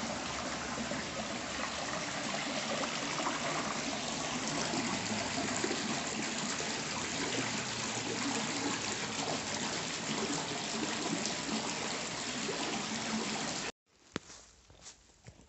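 Water running and splashing steadily into the long stone trough of an old public washhouse. It cuts off suddenly near the end, leaving only faint clicks.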